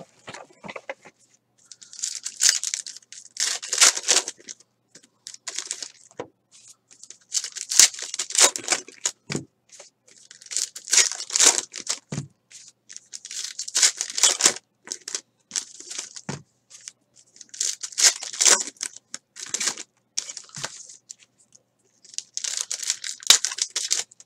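Foil wrappers of 2018 Diamond Kings baseball card packs being crinkled and torn open by hand, in a run of irregular rips and rustles with short pauses between them.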